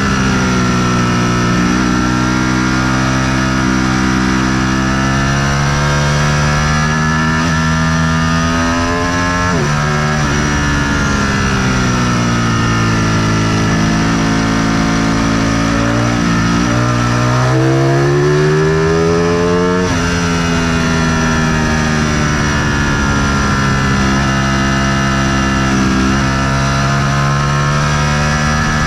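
Motorcycle engine running under way, its pitch slowly rising and falling with the throttle. It climbs and then drops sharply twice, about a third of the way in and again about two-thirds in, like gear changes.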